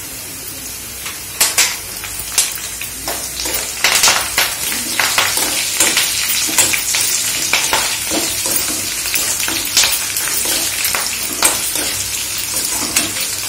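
Hot oil sizzling and crackling in a kadai as curry leaves fry in a tempering with onion and garlic. From about a second and a half in, a steel spoon stirs and scrapes against the pan with frequent crackles.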